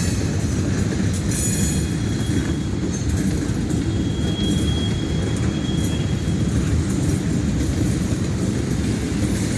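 Train rolling past with a steady low rumble of wheels on rail. Faint, thin wheel squeal comes and goes in the middle.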